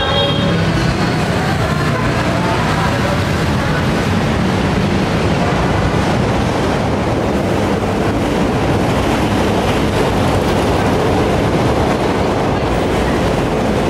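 Steady noise of heavy city street traffic: cars, motorcycles and tricycles running and passing on a busy road.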